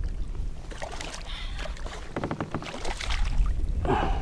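Irregular water splashes, clicks and knocks of handling on a kayak, over a low wind rumble.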